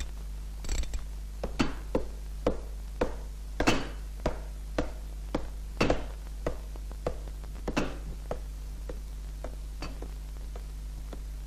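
Cartoon sound effect of a hand-cranked wheel of spring-mounted boots kicking as it turns: a steady series of sharp knocks, about two a second, fading toward the end, over a low, steady soundtrack hum.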